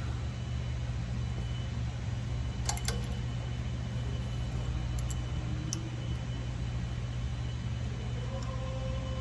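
Steady low machine drone with a faint high whine, which is probably a centrifuge running. A few light clicks come about three and five seconds in.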